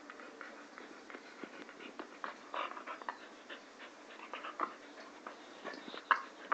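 Two puppies play-fighting up close, mouthing and nipping at each other: a run of short, irregular snaps and scuffles, busier in the second half, with the loudest about six seconds in.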